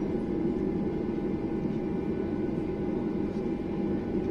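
Steady cabin drone of a Boeing 737-800's CFM56 jet engines running at low power while the airliner taxis on the ground, heard inside the cabin, with a faint steady whine above the low rumble.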